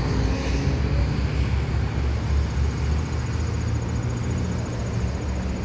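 Steady low rumble of wind on the microphone mixed with road traffic.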